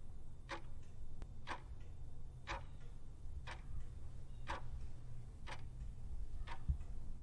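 Clock-ticking sound effect marking a countdown timer: one sharp tick each second, over a low steady hum.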